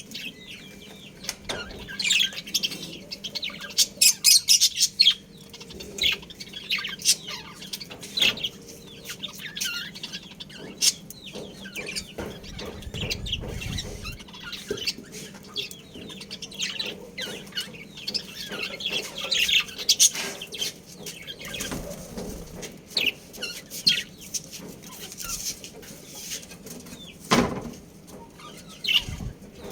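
Budgerigars chirping and chattering: a steady stream of quick, high chirps from several birds.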